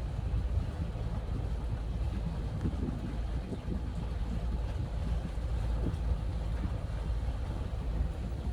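A boat underway: a steady low rumble of its engine and rushing water, with wind buffeting the microphone.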